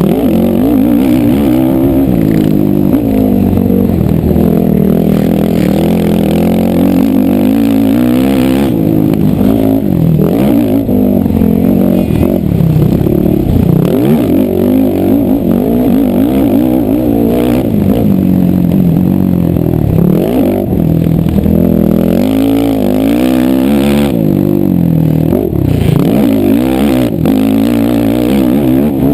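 Several racing ATV engines running at once, their pitches overlapping and rising and falling as they rev up and back off.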